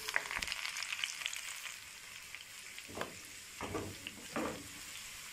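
Chopped garlic sizzling and crackling in hot oil with dried red chillies, curry leaves and green chillies, the tempering (baghar) for kadhi. The crackle is densest in the first second as the garlic hits the oil, then settles to a steady sizzle, with a few soft knocks about three to four and a half seconds in.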